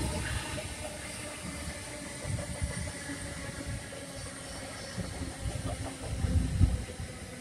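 NJ Transit bi-level commuter coaches rolling past: a steady rumble and hiss of wheels on rail, with a louder stretch of low rumbling near the end.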